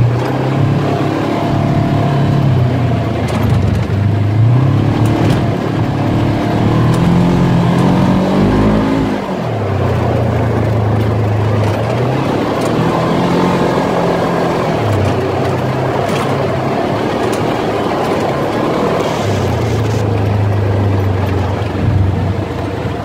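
Off-road vehicle's engine running while driving a dirt trail. Its pitch climbs steadily and then drops off sharply about nine seconds in, then it pulls steadily with smaller rises and falls in revs.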